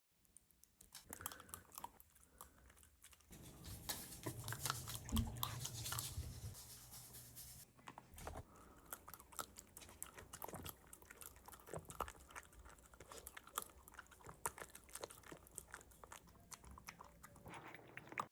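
A puppy eating raw dog food, chewing and biting with many quick crunching clicks, louder for a few seconds near the middle.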